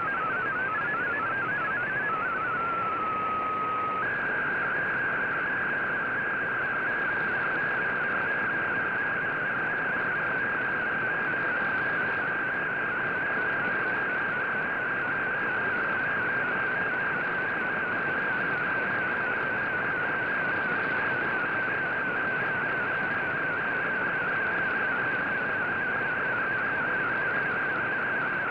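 Shortwave digital-mode data signal from the VOA Radiogram broadcast: a single warbling, rapidly stepping tone over steady receiver hiss. It changes through a short run of different tones in the first few seconds, then settles about four seconds in into a fast, even warble that goes on unbroken.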